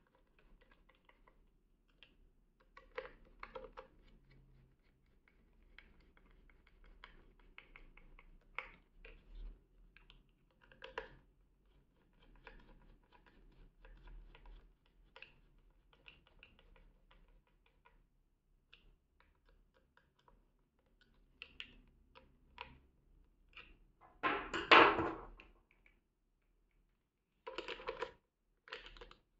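Small screwdriver clicks and scrapes as screws are driven into the plastic radiation-shield housing of a weather-station outdoor sensor, with light handling of the plastic parts. About three-quarters of the way through comes a louder rustle of handling noise lasting about a second, then plastic parts being pushed together near the end.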